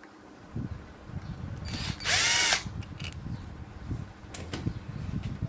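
A power screwdriver runs briefly about two seconds in, its pitch dipping and then rising, amid low knocks and rattles of fan parts being handled while the fan is taken apart.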